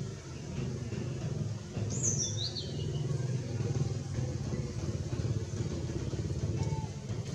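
A low, steady engine rumble, with one short, high, falling squeak about two seconds in.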